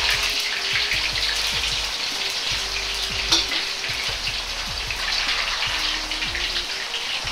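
Potato chunks deep-frying in oil in a wok at a low temperature of about 140 °C, a steady dense crackle and bubbling. A single sharp click comes a little over three seconds in.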